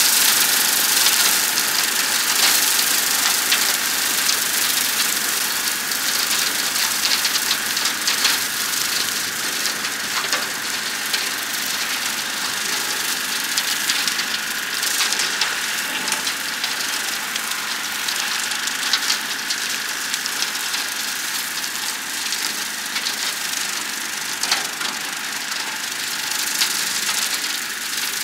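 John Deere 790 compact tractor's three-cylinder diesel running under load with its Bush Hog BH215 rotary cutter spinning and chopping briars and brush: a steady mechanical noise with a held whine and frequent short cracks and snaps.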